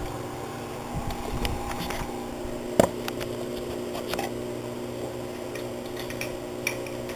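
Scattered light clicks and taps from hands working on a motorcycle's throttle housing and cables, the sharpest a little under three seconds in, over a steady background hum.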